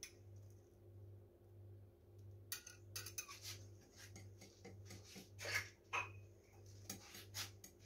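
Wire hand whisk beating cake batter in a glass bowl: irregular clinking and scraping strokes against the glass, starting about two and a half seconds in.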